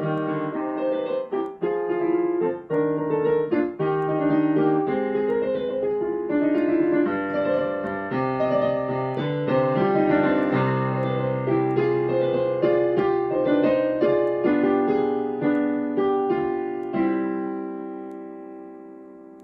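Solo piano music played on a digital piano: a flowing melody over held bass notes. About 17 seconds in a final chord is struck and left to fade slowly.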